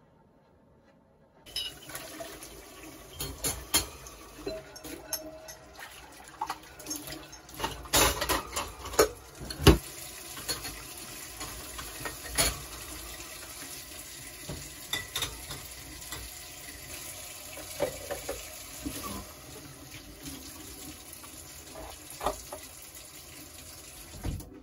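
Tap water running into a kitchen sink while dishes are washed by hand, with frequent clinks and clatter of dishes against each other and the sink. It starts suddenly about a second and a half in.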